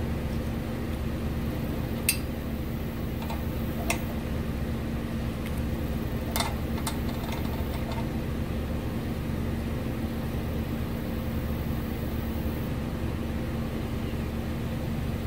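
A steady low machine hum with a faint steady tone, broken by a few short, light clicks about two, four and six seconds in.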